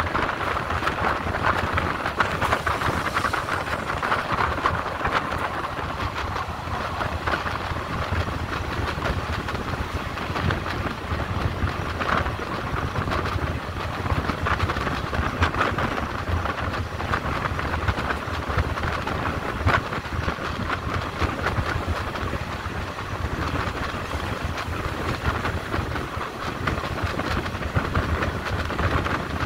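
Passenger train running along the track, heard on board: a steady rumble and rush of wheels on rail, with an occasional sharp click from the wheels over rail joints.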